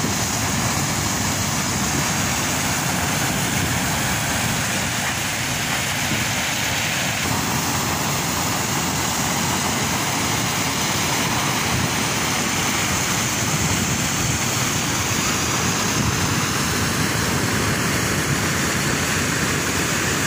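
Steady, unbroken noise of coal pouring from a shiploader spout into a bulk carrier's cargo hold while the loading machinery runs.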